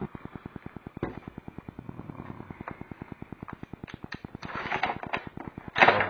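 Hands handling a Belkin Thunderbolt Express dock and crinkling its protective plastic wrap, with scattered sharp crackles that grow busier about four seconds in. Underneath runs a fast, even, faint low pulsing.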